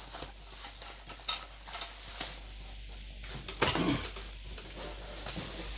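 Light clinks and knocks of metal gaming-chair parts being handled and set down, including the chair's tilt-adjustment mechanism.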